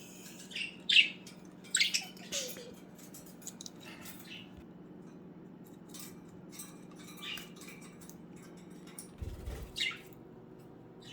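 Budgerigars giving short, scattered high chirps, a few seconds apart, over a steady low hum. About nine seconds in, a brief low rumble sounds and the hum stops.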